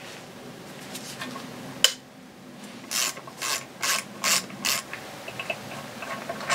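A hand ratchet with a 7/32 hex bit is working a bearing-carrier bolt loose on an outboard lower unit. There is one sharp click, then five short bursts of ratchet clicking at about two a second as the handle swings back and forth, then a few faint ticks.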